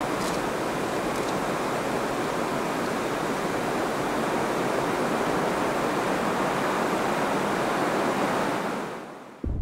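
A steady, even rushing noise that fades out about nine seconds in.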